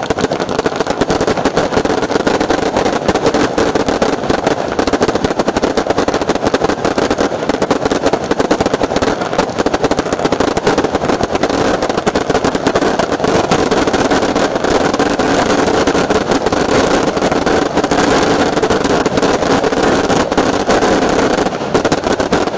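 Fireworks finale: a loud, dense barrage of rapid, unbroken reports.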